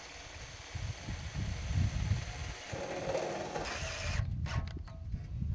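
Cordless drill running as it drives a screw into a steel bracing strut, for about four seconds, followed by a few short knocks. Over it, a loud, steady, very high-pitched whine cuts off suddenly near the end of the drilling.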